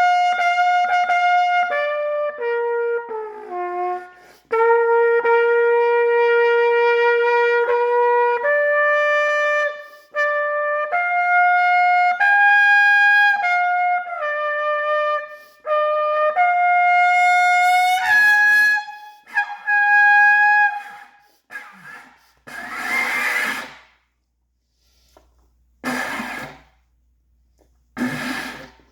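Trumpet playing a run of held notes, one after another, stepping up and down in pitch. About two-thirds of the way through, the notes give way to three or four harsh, noisy blasts with no clear pitch.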